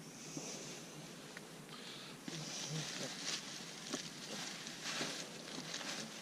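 Irregular rustling and crackling, busier and louder from about two seconds in.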